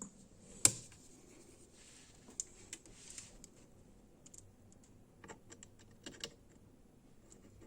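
Scattered light clicks and taps from hands handling hardware, with one sharper click less than a second in and small clusters of quick clicks later on.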